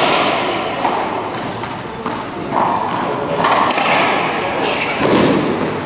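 Racquetball rally: the rubber ball is struck by racquets and smacks off the court walls several times at irregular intervals, each hit echoing in the enclosed court.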